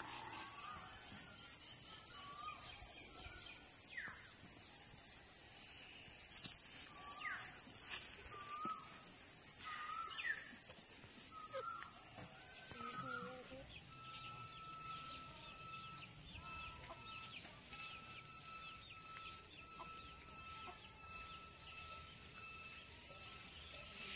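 Rural outdoor ambience: a steady high-pitched insect drone, with short chicken clucks and bird calls scattered through the first half. About halfway through, everything drops abruptly in level, leaving the drone quieter and a thin high tone that keeps breaking off and resuming.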